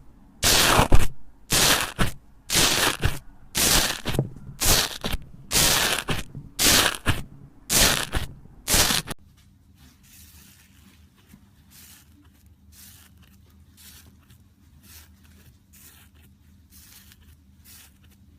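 Slime being worked by hand: loud noisy strokes about once a second, nine in all. About nine seconds in, the sound cuts to a much quieter stretch of faint small crackles.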